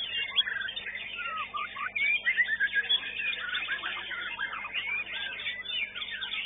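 White-rumped shamas singing together in a contest, a dense overlapping stream of fast varied whistles, chirps and sliding notes.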